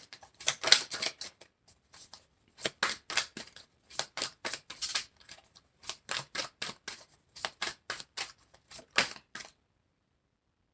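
A tarot deck being shuffled by hand: quick runs of crisp card flicks and slaps in uneven bursts, stopping near the end.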